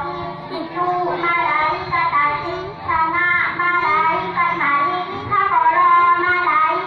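A child singing a slow melody, holding long notes that step up and down in pitch.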